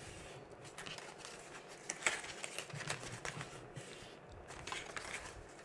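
Purple cardstock being folded along its score lines and pressed flat by hand: faint scattered rustles and crisp little paper snaps.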